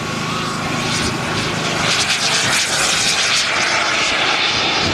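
Radio-controlled model aeroplane flying past, its engine running steadily and growing a little louder.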